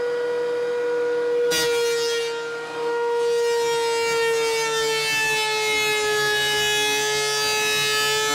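Benchtop thickness planer and dust collector running while planing a glued-up panel: a steady motor whine, joined about a second and a half in by a louder rushing hiss, its pitch sagging slightly over the following seconds.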